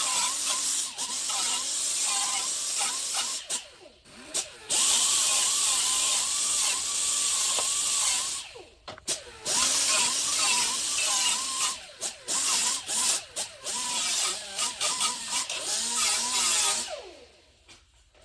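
Grinder grinding down the corners of a sheet-metal patch panel, its motor whine wavering as the disc bites. It runs in long passes with short breaks, then in short bursts, and stops near the end.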